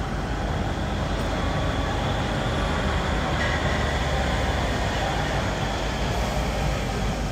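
Steady whir of a DC fast charger's cooling fans running hard while it delivers about 86 kW, over a low hum, with a faint high tone briefly in the middle.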